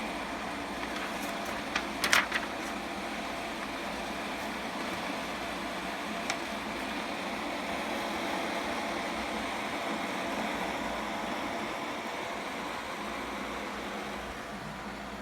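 CLC360 closed-loop liquid CPU cooler running steadily, its fans and pump giving an even whirring hum with a faint steady tone. A few sharp clicks come about two seconds in and once more about six seconds in.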